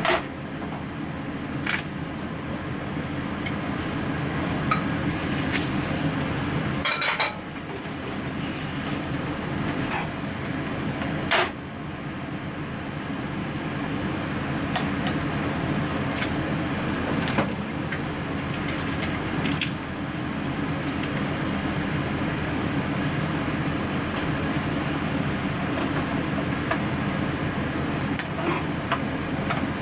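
Kitchen utensils clinking and scraping against a pan or dishes: scattered sharp clicks, with a louder scrape about a third of the way in, over a steady low hum.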